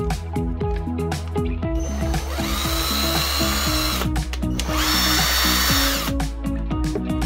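MAKO 18V cordless impact driver running free with no load: its motor whirs up twice, once for about two seconds and again for about a second and a half, over guitar music.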